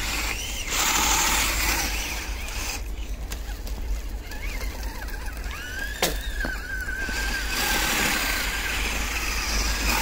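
Small electric radio-controlled snow vehicles driving through snow. A motor and gear whine rises and falls, over a noisy rush of churning snow that swells at the start and again near the end. A single sharp click comes about six seconds in.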